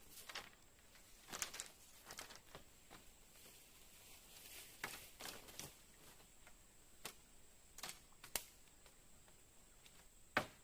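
Faint, scattered small clicks and rustles, about a dozen spread irregularly, over a steady faint high-pitched tone.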